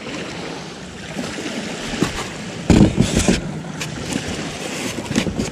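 Surf washing on a beach with wind on the microphone, and a brief louder burst of noise about three seconds in.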